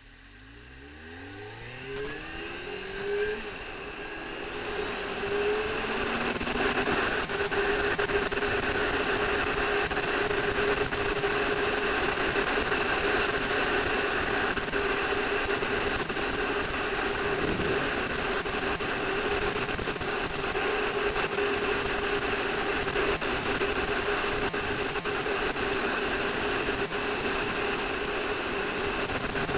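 Suzuki GSX-R sport bike engine pulling up through the gears over the first few seconds, then running steadily at speed with a loud rush of wind.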